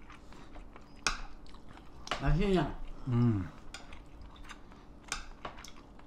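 Metal spoon and chopsticks clicking against ceramic bowls and plates a few times, the sharpest click about a second in, with soft chewing.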